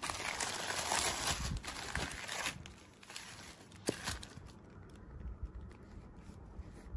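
Bubble-wrap and plastic packaging rustling and crinkling as a small boxed product is pulled out of it. The crinkling dies down about two and a half seconds in, leaving a few soft taps and scrapes from handling the cardboard box.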